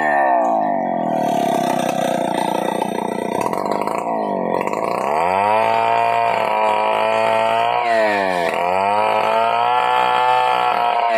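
Stihl chainsaw ripping a coconut-palm trunk lengthwise. Its engine pitch sags in the first seconds, then twice drops almost to idle and climbs back to a high, steady pitch as the throttle is let off and opened again.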